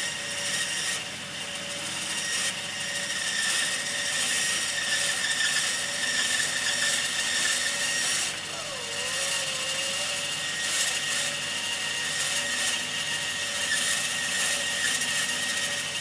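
Bandsaw ripping a walnut blank along the fence: a steady running hum with the blade's cutting noise over it, easing briefly twice as the feed slows.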